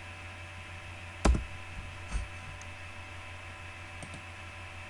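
Clicks from working a computer mouse and keyboard: a sharp click about a second in, a softer one about a second later and a faint one near the end, over a steady electrical hum.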